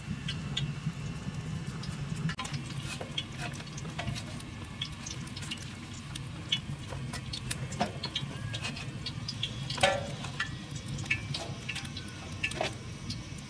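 Hands coating raw fish in flour and moving them about on a metal tray: soft wet handling with scattered light clicks and taps, and one louder knock about ten seconds in, over a steady low hum.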